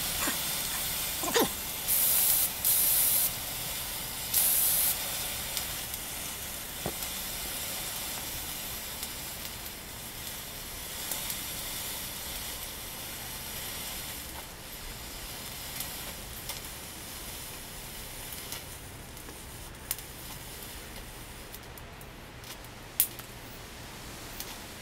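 A burning pyrotechnic hissing steadily, with two louder spurts of hissing about two and four seconds in. It then fades gradually as it burns down, with scattered crackles and a sharp pop near the end.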